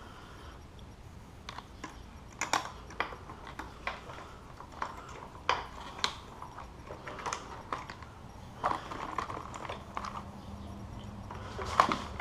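Scattered light clicks and knocks from hands working in a sport bike's tail section, handling the plastic bodywork, wiring and small metal parts, at an irregular pace.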